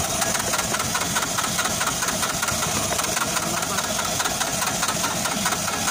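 Diesel engine turning over with an even, rhythmic beat of about five strokes a second, while air is bled from its injector fuel lines after it ran out of diesel.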